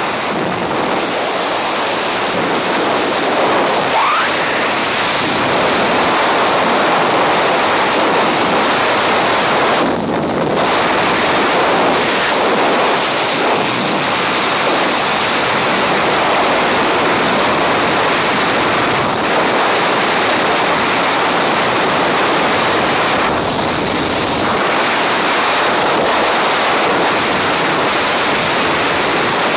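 Loud, steady rush of freefall wind buffeting a skydiving camera's microphone, thinning briefly twice as the flyer's head turns in the airflow.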